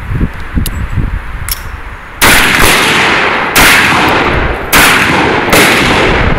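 Black-powder revolver fired four times, a second or so apart, each shot loud and trailing off in echo. Before the first shot there are a few light clicks of handling.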